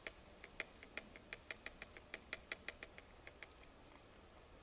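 Quick, faint ticks and taps, about six a second, as the pan of a flintlock fowler is reprimed with fresh powder, the old priming having been dampened by snow falling on the lock. The ticking stops about three and a half seconds in.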